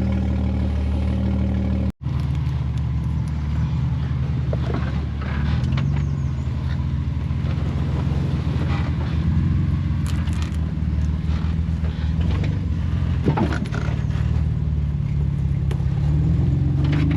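Off-road vehicle engine running at low revs, rising and falling in pitch a few times as it crawls over a rocky trail, with a few sharp knocks and scrapes. The sound cuts out for an instant about two seconds in.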